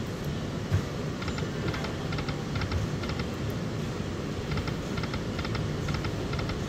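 Aristocrat Dragon Link video slot machine spinning its reels: clusters of short clicking ticks as the reels run and stop, several times over, against a steady casino background hum.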